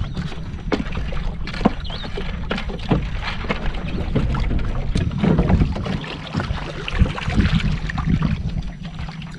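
Water sloshing and splashing around a small wooden fishing boat, with scattered knocks against the hull and a steady low rumble.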